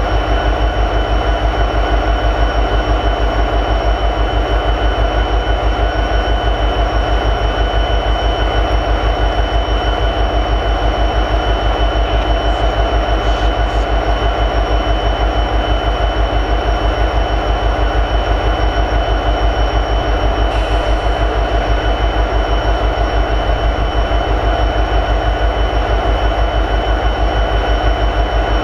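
EMD SD70ACe locomotive's 16-cylinder 710 two-stroke diesel prime mover idling with an even, rhythmic low pulse, and a steady high-pitched whine over it.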